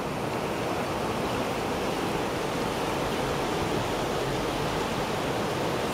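Steady rushing of the Lahn river's floodwater, running very high.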